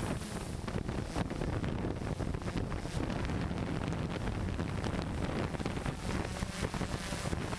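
Hexacopter's six electric motors and propellers running steadily, heard from the camera mounted on the craft, with prop wash buffeting the microphone into a rough, crackling rumble.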